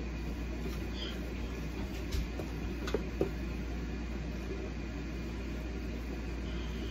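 Wooden spoon stirring thick instant mashed potatoes in a stainless steel stockpot, with a few sharp knocks of the spoon against the pot between two and three seconds in, over a steady low hum.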